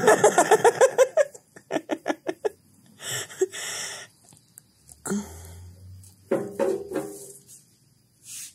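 Person laughing in a quick run of short bursts, among brief murmured voice sounds and a few breathy noises.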